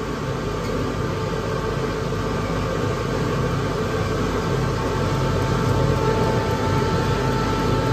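Diesel injector test bench running a repaired Delphi common-rail injector through its final test: a steady mechanical running sound with a thin steady whine, growing slightly louder.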